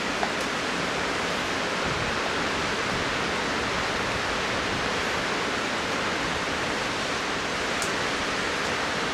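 Steady rushing of wind through the trees and over the microphone, an even, unbroken noise with no gusts standing out.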